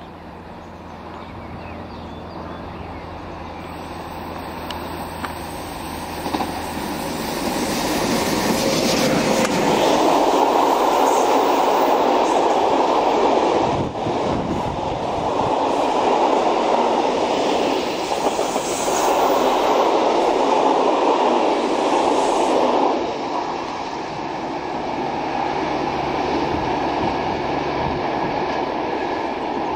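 Electric-hauled freight train of open wagons approaching and passing close by, its wheels rumbling and clattering over the rails, with a few brief high wheel squeals. It grows louder over the first several seconds and eases off near the end.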